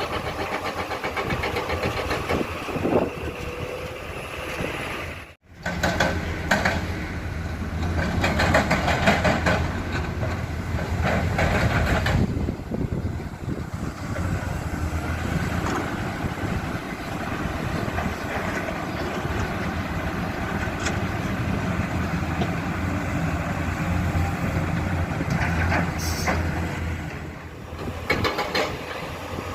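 Diesel engines of excavators and a dump truck running under load, with stretches of clatter and scraping as waste rock is dug and loaded. The sound cuts out briefly about five seconds in.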